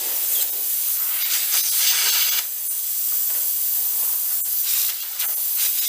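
Compressed air hissing steadily out of a punctured tire through the hole being plugged, after a sudden start.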